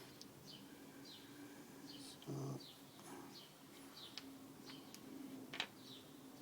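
Faint bird chirping: short, high, falling chirps repeating every half second or so. There is a brief dull knock about two seconds in and a sharp click near the end, from parts being handled.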